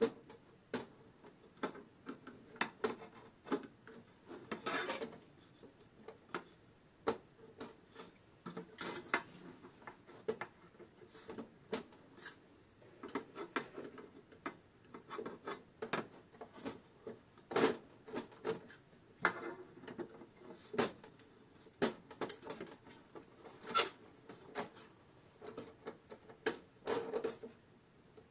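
Irregular small clicks, taps and scrapes of metal parts and tools as the coil is worked loose from an old synchronous mains clock movement, a few knocks standing out louder.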